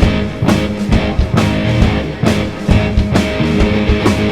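Live rock band playing an instrumental passage between vocal lines: electric guitar over bass and a drum kit keeping a steady beat.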